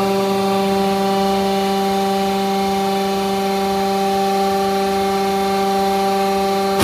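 The hydraulic power unit of a shipbuilding press running: a steady hum at one unchanging pitch with overtones, from the electric motor and hydraulic pump.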